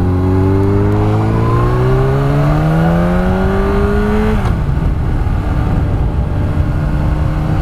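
Yamaha R1 inline-four motorcycle engine, restricted to 48 PS, pulling hard in one gear with its pitch rising steadily. About four and a half seconds in the pitch falls away sharply, and the engine then runs on at a steady, lower pitch. Wind rushes on the microphone throughout.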